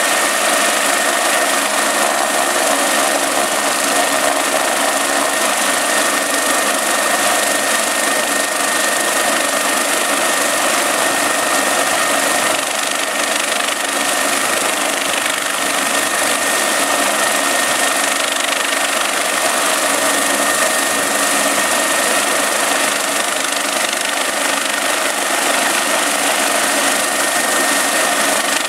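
Kawasaki BK-117 helicopter's twin turbine engines and main rotor running steadily while it sits on the helipad, with a steady high whine above the rotor noise.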